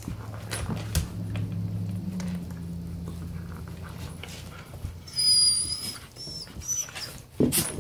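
Husky puppy growling low and steady for about four seconds while guarding a stolen bone from an adult husky, then a short high squeal about five seconds in, with scattered clicks.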